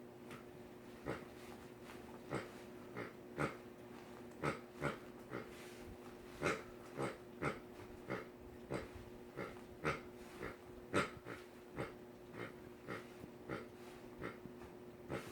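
Dog playing with a toy: short, irregular snorts and puffs of breath, roughly two a second, over a steady low hum.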